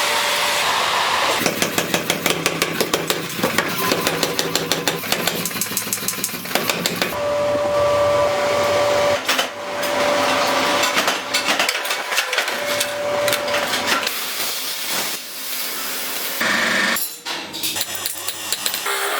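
Metalworking on a drill bit in quick succession: rapid, evenly spaced hammer strikes on steel, then a machine running with a steady whine that starts and stops several times.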